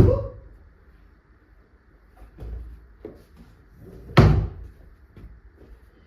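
Knocks and thuds of hard objects being handled, with one loud bang about four seconds in.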